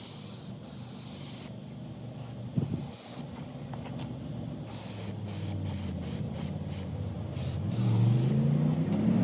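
Aerosol can of clear lacquer spraying in a run of short hissing bursts, some in quick succession. A motor engine hums underneath and rises in pitch, loudest near the end.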